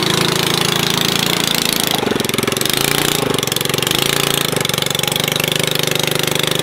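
The small engine of a homemade go-kart monster truck running under load as the truck crawls through a mud puddle, its pitch rising and falling with the throttle. A couple of short knocks come about two and three seconds in. The owner puts its struggle down to the belt-to-chain drive, which leaves it short of torque in the mud.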